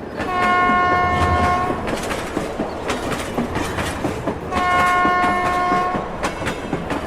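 Train horn sounding twice, each steady blast about a second and a half long, over the running noise and wheel clickety-clack of a train on rails.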